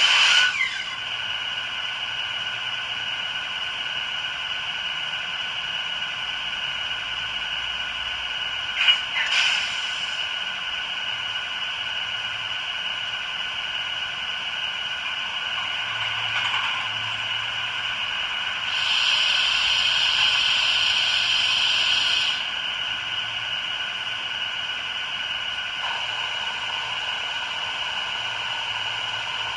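ESU sound decoder in a Roco HO model of an ÖBB 2043 diesel locomotive, playing the standing locomotive's diesel engine sound through its small onboard speaker: a steady, tinny hum of several fixed tones. A pair of short sharp sounds comes about a third of the way in, and a hiss lasting a few seconds about two-thirds of the way in.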